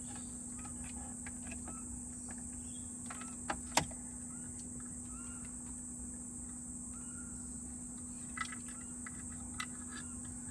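Steady high-pitched insect chorus with a constant low hum underneath, broken by a few sharp clicks and taps, the loudest just under four seconds in.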